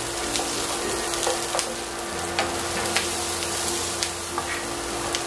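Sliced red onion sizzling in oil in a frying pan, stirred with a wooden spatula that knocks and scrapes against the pan a few times.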